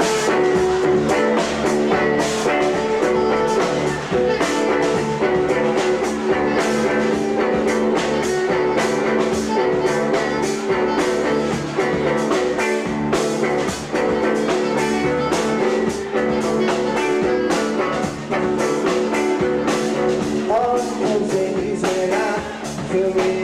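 Live band playing a song: electric guitar, bass and drum kit with a steady beat, and an alto saxophone taking a melody line.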